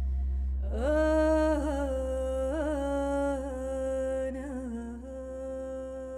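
A voice hums a long held note with small ornamental turns over a steady low drone, starting about a second in and fading to a softer held tone near the end.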